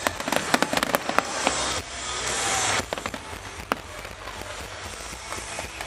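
Fireworks exploding: a rapid string of sharp bangs in the first second and a half, then a crackling hiss that cuts off suddenly about three seconds in, followed by a few scattered pops and fainter crackle.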